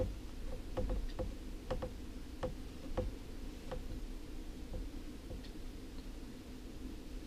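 Light, irregular clicks and taps from a smartphone in its case being handled and tapped to dial, about nine in the first five seconds, over a steady low hum.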